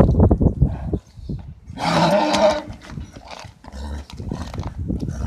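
Horses at a breeding tease: one loud squealing call about two seconds in, amid hooves stamping and shuffling. The squeals and stamping are the sign of a stallion and mare being teased before covering.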